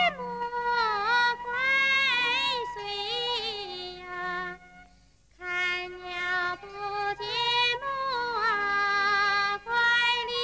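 A woman singing a slow Chinese mountain song (shan'ge) solo in a high, bright voice, drawing out each line with gliding ornaments. The voice breaks off briefly about five seconds in, then starts the next line.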